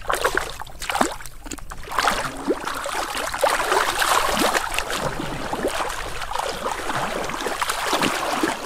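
Shallow muddy water sloshing and splashing as a person crawls and gropes through it with hands and body, a steady run of many small splashes.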